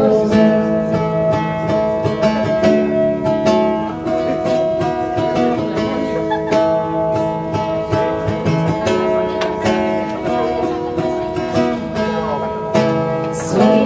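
Acoustic guitar strumming a steady rhythm with sustained chords in an instrumental passage of a song, with no singing.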